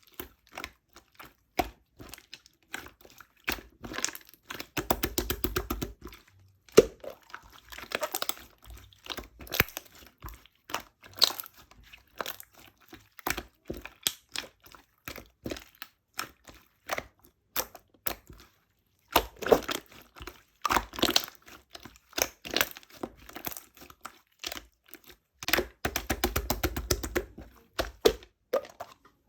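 Irregular clicks, taps and crinkling from small objects being handled. There are two denser stretches of rapid rattling, about five seconds in and again about twenty-six seconds in.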